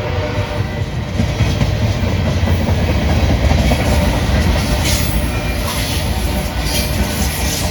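CSX freight train rolling past, a loud, steady low rumble of steel wheels on the rails with clattering over the track. Brief higher screeching flashes of wheel noise come about five seconds in and again near the end.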